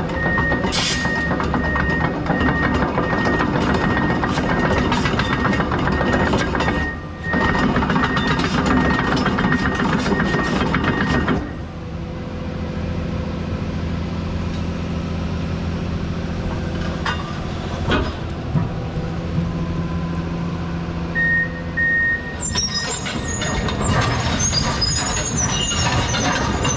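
Komatsu PC210LC-11 crawler excavator's diesel engine running while its travel alarm beeps about twice a second and the steel tracks clatter. About halfway through, the beeping and clatter stop and the engine runs on steadily, with the beeping returning briefly near the end.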